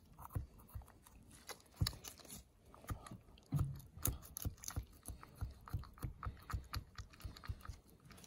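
Kitchen knife tip cutting around an octopus's beak on a plastic cutting board: a run of small irregular clicks and wet cracks, coming more often from about three and a half seconds in.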